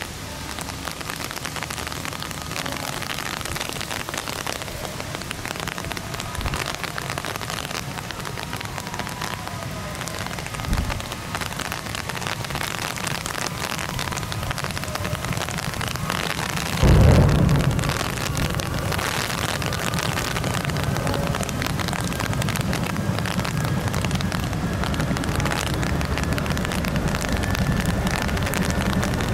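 Boeing CH-47 Chinook helicopter's turbine engines running: a loud, steady rushing noise with a faint whine. About 17 s in there is a loud low thump, after which a low rumble continues and grows slightly louder.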